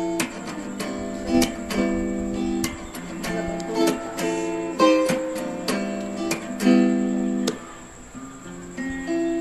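Background music: an acoustic guitar strumming chords at a steady, even pace.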